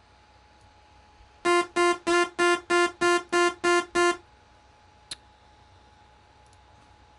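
Software synthesizer playing back from a music sequencer: the same mid-pitched note repeated nine times at about three a second, each note short and evenly spaced. A single sharp click follows about five seconds in.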